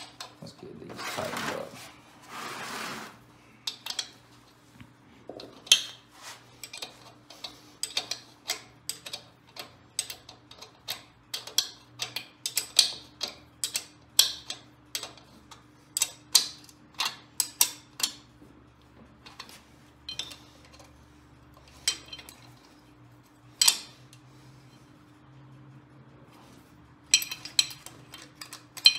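Irregular metal clicks and clinks of hand tools and nuts on engine parts, as nuts are snugged down on a small twin-cylinder engine being rebuilt. There are two longer rushing noises near the start and a faint steady hum underneath.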